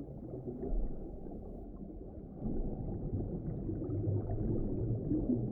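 Muffled underwater ambience: a dull, steady rumble of water with no high sounds, swelling a little about halfway through.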